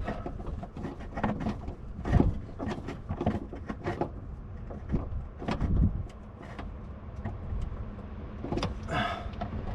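Irregular metal clicks and knocks of a nut driver tightening a 10 mm nut down on a battery cable terminal, over a low steady rumble.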